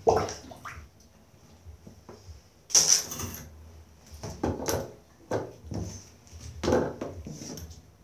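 A puppy, upset after a bath, gives a string of short whines and yelps, about half a dozen, each starting suddenly.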